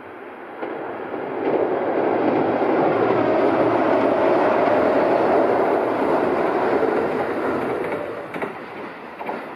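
Kintetsu 23000 series Ise-Shima Liner electric express train passing at speed over a girder bridge: its running noise grows over the first couple of seconds, holds loud for about five seconds, then fades, with a few wheel clicks as it goes.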